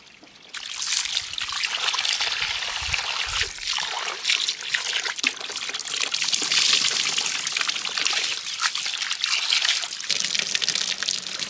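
A stream of water from a pipe splashing into a bowl of rice and a pot of water while hands swish the rice to wash it, starting about half a second in.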